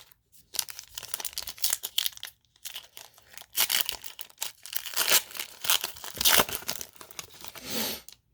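A baseball card pack's wrapper being torn open and crinkled by hand: a run of crackling, tearing and crumpling that is loudest in the middle.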